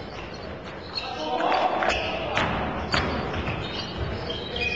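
Basketball play on a wooden hall court: several sharp thuds and knocks of the ball and players, players' shouts, and short high squeaks of shoes on the floor near the end.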